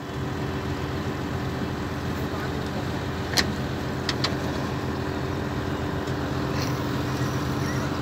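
Excavator-mounted vibratory pile hammer and excavator engine running with a steady droning hum while clamped on a pipe pile. A few sharp knocks come in the middle.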